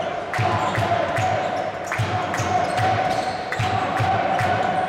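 Basketball game sound in an indoor arena: an even run of low thuds about three a second, with hall noise and a steady held tone behind it.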